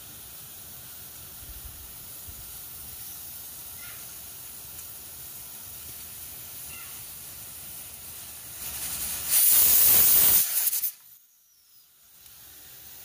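Stovetop pressure cooker hissing steadily on the gas flame, then about nine seconds in it builds and lets out a loud rush of steam for about a second and a half, its whistle as the weight valve lifts at full pressure, which stops abruptly.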